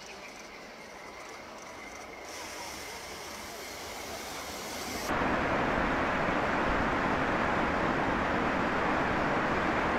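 Steady rushing noise of a snowplow train blasting through deep snow. It is moderate and slowly building at first, then about five seconds in it jumps suddenly to a much louder, fuller rush.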